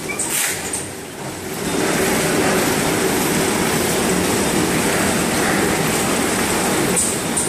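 Automatic mooncake packing line running: a steady mechanical rumble from the tray conveyor and horizontal pillow packing machine, with a short hiss near the start. It settles to a louder, even running noise after about two seconds.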